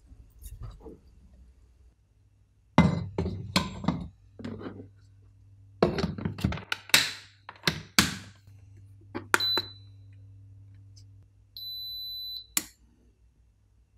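Small electric rice cooker being loaded and shut: several thunks and clanks of the pot and lid, then button beeps — two short ones about nine seconds in and one longer beep near the end.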